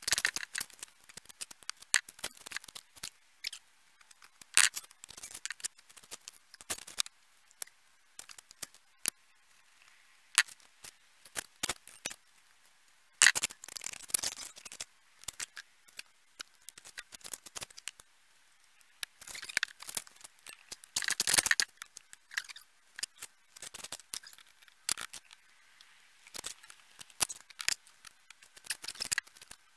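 Irregular scrapes and clicks of hand masonry work, a trowel and bricks scraping against mortar and brick, with longer scraping stretches about halfway through and again about two-thirds of the way in.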